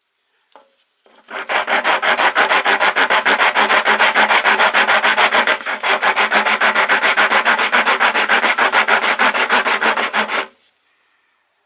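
Coarse-cut half-round woodworking rasp (Daiso 100-yen) filing wood in quick, even strokes, about six or seven a second, with a brief break about halfway.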